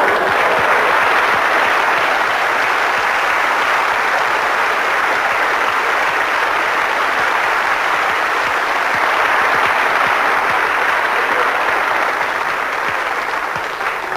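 Studio audience applauding steadily for a long stretch, dying away near the end.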